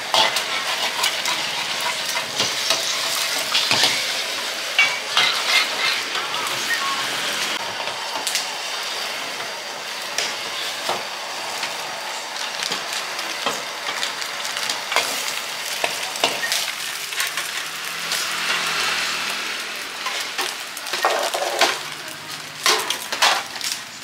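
Eggs sizzling in a hot wok, with a metal spatula scraping and clicking against the wok as the egg is spread into a thin sheet. Several sharper metal clinks come near the end.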